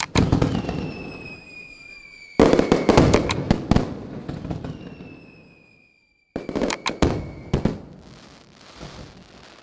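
Slot machine's fireworks sound effect: three sudden bursts of bangs and crackling, at the start, about two and a half seconds in and about six seconds in. Each burst fades away, and a thin whistle falling slowly in pitch trails the first two.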